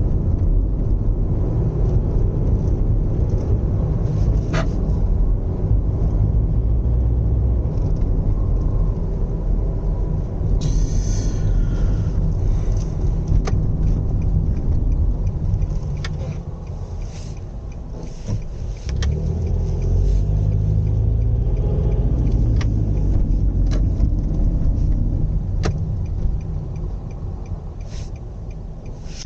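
2008 Nissan Serena C25 minivan heard from inside the cabin while driving: steady low road and drivetrain rumble with scattered sharp clicks and rattles. About eleven seconds in there is a brief harsh scraping noise, the kind of abnormal 'jaa' noise the owner is reporting, its cause not yet known.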